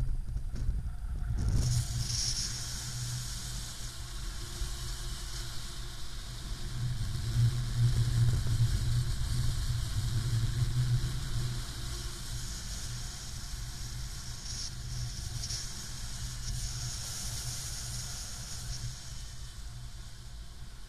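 Airflow rushing over the microphone of a paraglider pilot's harness-mounted camera in flight: a low rumbling buffet with a hiss over it, louder for a few seconds around the middle.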